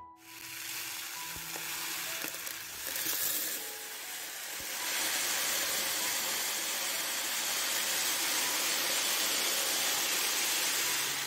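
Dry uncooked basmati rice pouring from a bag into a plastic tub: a steady rushing hiss of falling grains that grows louder about five seconds in.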